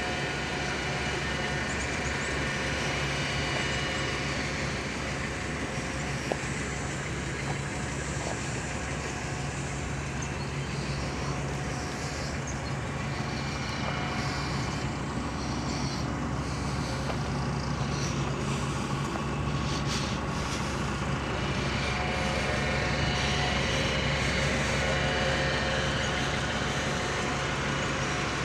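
Ford E-350 Super Duty cube truck's engine idling steadily.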